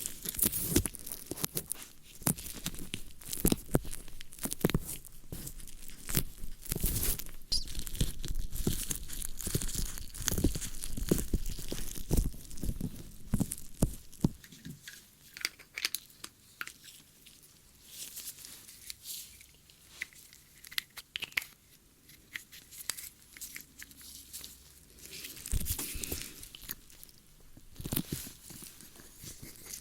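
ASMR ear-cleaning sounds: tools scraping and rubbing close to the microphone, making a dense crackle for about the first half, then sparser scratches and clicks with a couple of louder flurries near the end.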